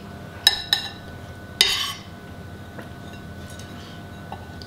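Metal spoon clinking twice against a soup bowl about half a second in, the clinks ringing briefly, then a short noisier sound about a second later and a few faint ticks.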